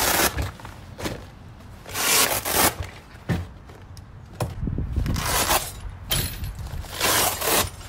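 Pouches being pulled off a fabric tool roll: several short rasping rips about half a second each, with fabric rustling between them.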